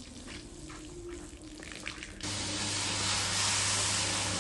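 Soft, scattered wet sounds on a soapy rug, then about halfway through a rotary floor-scrubbing machine comes in suddenly and runs steadily. Its brush hisses over the wet foam above a low, even motor hum.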